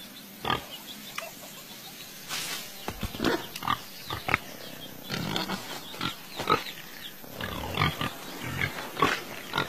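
Animal calls: a series of short, irregular cries, some coming in quick clusters and others spaced a second or so apart.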